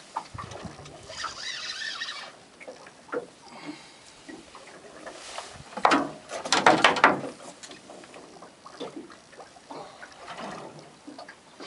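Small open boat rocking on choppy sea, water slapping and sloshing against the hull, with scattered knocks and a loud clatter of sharp clicks about six to seven seconds in.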